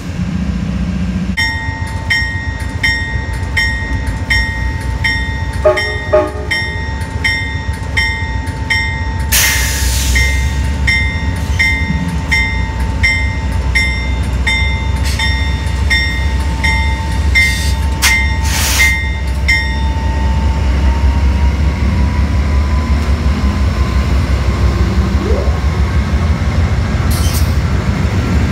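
Amtrak GE P42DC diesel locomotive's engine running with a deep steady rumble that grows louder about halfway through as the train pulls slowly ahead. A bell rings steadily about twice a second until roughly two-thirds of the way in, then stops. Brief bursts of hiss come around a third of the way in and again later.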